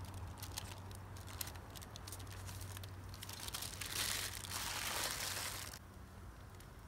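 Parchment paper being peeled off a raw bacon lattice, crinkling and crackling, then crumpled up by hand. The crumpling from about four to nearly six seconds in is the loudest part.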